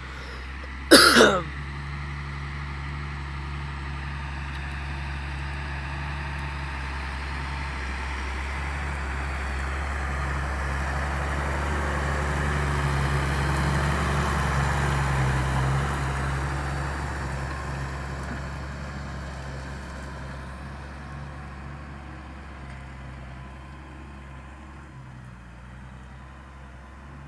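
Deutz-Fahr Agrotron tractor engine running under load while ploughing. It grows louder to a peak about halfway through, then fades as the tractor passes and moves away. A brief, sharp falling sound comes about a second in.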